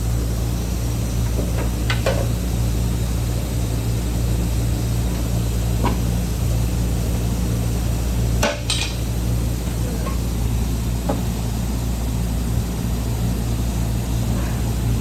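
Steady low mechanical hum with a few scattered light metallic knocks and clicks, the sharpest about eight and a half seconds in.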